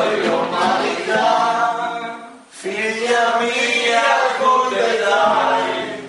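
Several people singing a song together in chorus, with a short break about two and a half seconds in.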